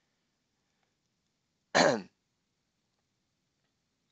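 A man clears his throat once, briefly, about two seconds in, the pitch dropping as it goes.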